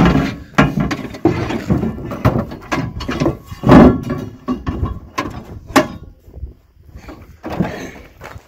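Irregular knocks, thuds and scraping as a welded roping dummy's metal disc base is shoved and slid across a pickup truck bed. The loudest knock comes about four seconds in.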